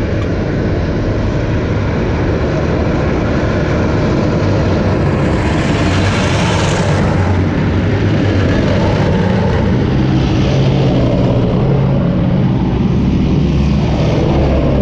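Tracked armoured vehicles driving past close by: heavy diesel engines running with track noise, a hissing surge about five to seven seconds in, and a steadier deep engine note growing louder in the second half as a self-propelled howitzer comes past.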